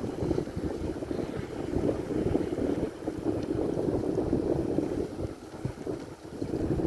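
Wind buffeting the microphone: a gusty rushing noise that rises and falls without pause.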